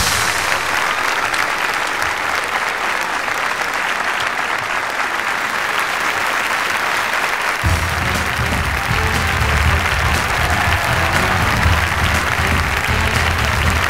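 Audience applauding steadily, with band music underneath. The music's bass is missing at first and comes back about halfway through.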